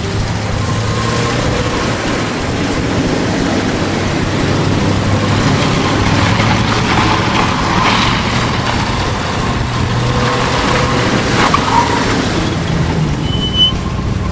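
1972 Ford Mustang engine running steadily with a low drone, its pitch shifting up a little near the end. A brief high-pitched chirp sounds about thirteen and a half seconds in.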